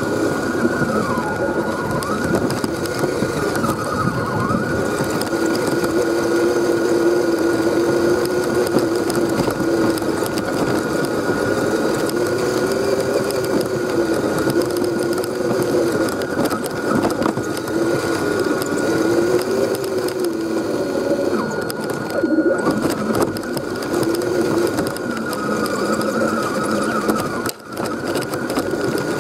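Electric motor and geartrain of an Axial SCX10 scale RC crawler whining, the pitch rising and falling as the throttle changes, with a steady high tone alongside. The sound drops out briefly near the end.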